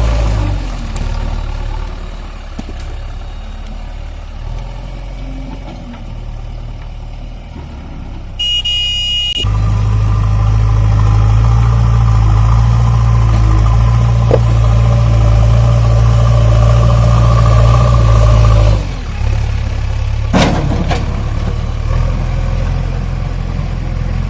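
JCB 3DX backhoe loader's diesel engine running. It is at a lower level at first, then held louder and steady for about nine seconds before easing off, as under working load. A brief high beep comes about eight seconds in, and a sharp knock comes about twenty seconds in.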